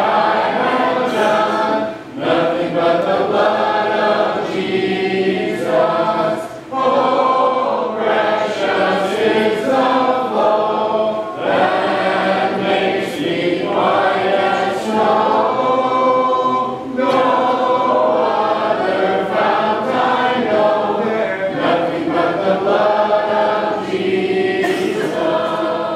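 Congregation singing a hymn a cappella, many voices together, with brief pauses for breath between lines.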